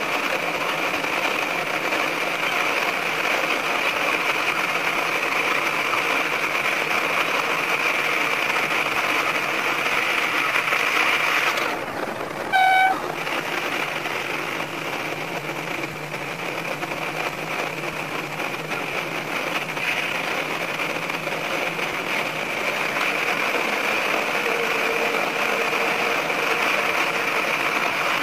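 Sanriku Railway 36-200 diesel railcar running through a tunnel: a steady running noise of engine and wheels on rail. About twelve seconds in, the horn sounds once in a short toot.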